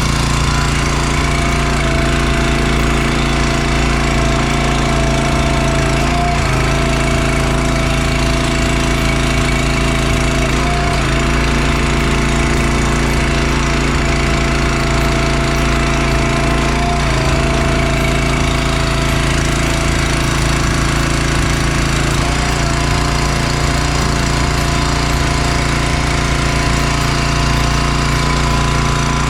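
Small gas engine of a 35-ton log splitter running steadily after its gummed-up carburetor was cleaned: it now stays running. Its tone dips briefly about every five or six seconds.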